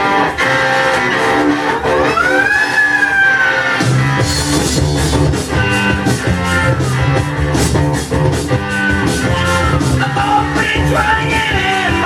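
Psychedelic blues rock recording from 1970: electric guitar, then a long wail that slides up and slowly falls, with the full band, drums and bass, coming in about four seconds in.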